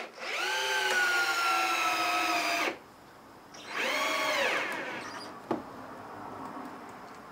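Power drill boring down into a wooden framing board: a run of about two and a half seconds whose whine sags slightly in pitch under load and stops suddenly, then a second, shorter burst that spins up and winds down.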